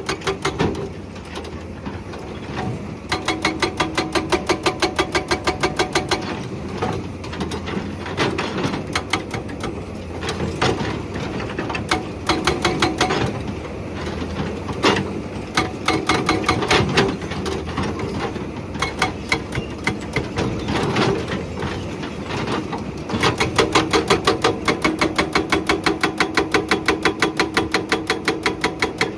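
Hydraulic breaker on a Hyundai excavator hammering rock in rapid, even blows, in several bursts with short pauses between them, the longest steady run near the end. The excavator's diesel engine runs underneath.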